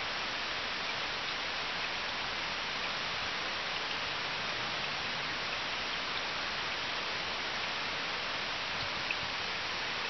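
Small woodland stream running, a steady, even hiss of water.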